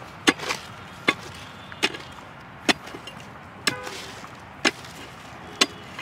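A short-handled metal digging tool chopping into hard, dry soil, about one sharp strike a second, with one quick double hit near the start. One strike partway through rings briefly.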